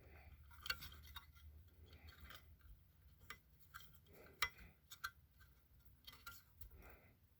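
Faint, irregular clicks and light taps from objects being handled, the loudest about four and a half seconds in; the alarm's horn is not sounding.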